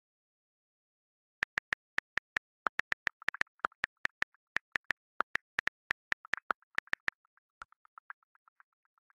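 Phone on-screen keyboard clicks as a message is typed: quick, irregular taps, several a second, starting about a second and a half in. They become fainter and softer near the end.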